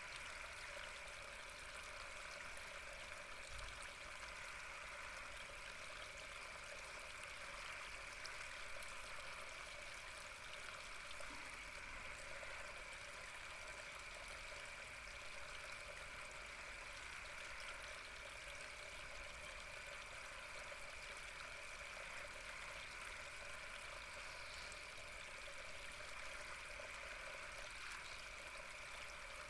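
Water flowing and trickling gently and steadily, a calm continuous splashing with no breaks.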